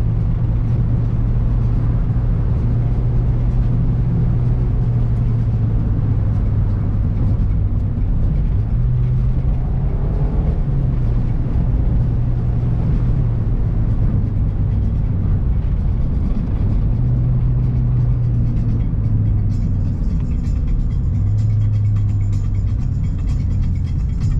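2019 Mazda MX-5 Miata's four-cylinder engine heard from inside the cabin with road noise while driving, its low drone rising and falling in pitch several times with throttle and gear changes.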